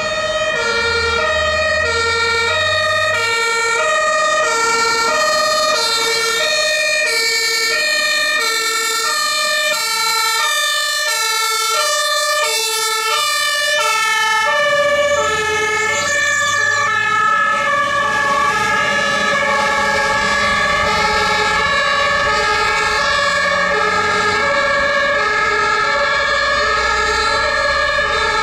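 German two-tone emergency-vehicle horns (Martinshorn) sounding on responding fire engines, alternating high and low notes about once a second. Near the middle the pitch drops as one vehicle passes with its engine, and in the later half a second horn overlaps at a different pitch.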